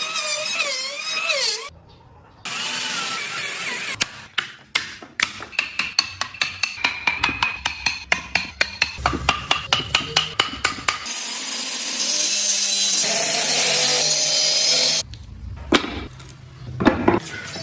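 Woodworking tools in a series of short cuts. First a power tool runs, then comes a fast run of repeated strokes on wood, several a second, and then a steady power tool run of about four seconds.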